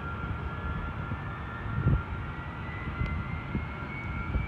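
Distant Boeing KC-135R's CFM56 turbofans running, a steady jet noise with a high whine that rises slowly in pitch. Two low thumps come about two seconds in and near the end.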